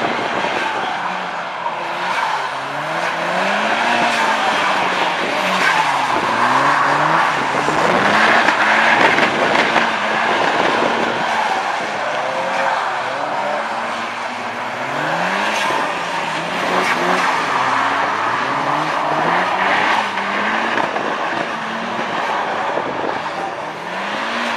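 Turbocharged car engine pulled hard through the gears, its pitch climbing and then dropping at each shift, several times over. A hiss sits over the engine throughout, and short bursts of turbo flutter come on the lifts between pulls.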